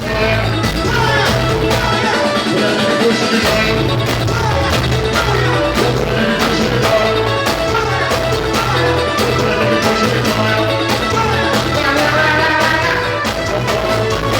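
Latin American-style music with a bass line, melody and a steady drum beat.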